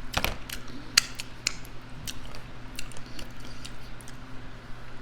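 Close-miked eating: chewing with scattered sharp wet mouth clicks and smacks, over a faint steady low hum.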